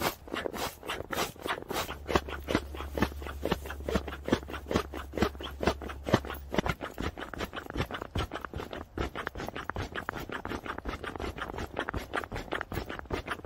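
Nylon tent and sleeping-pad fabric rustling and scraping in quick, irregular strokes, several a second, as someone moves around inside the tent. A low hum runs underneath from about two to six seconds in.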